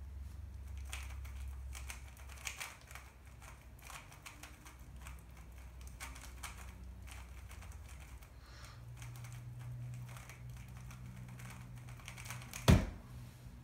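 A 3x3 speedcube being turned quickly in the hands: a fast, uneven run of small plastic clicks and clacks, with one loud knock near the end.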